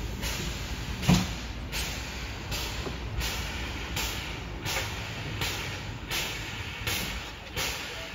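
Steam locomotive moving slowly, its exhaust chuffing in an even beat of about three chuffs every two seconds, with one heavy clank about a second in.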